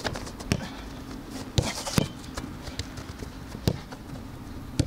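A football being kicked and controlled: about six sharp, irregularly spaced thuds of foot on ball.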